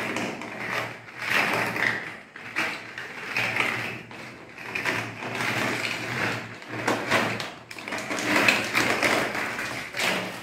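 Plastic toy building blocks clattering and tumbling out of a clear plastic zip bag as it is tipped out, with the bag crinkling. It is a continuous run of clicks and rustling.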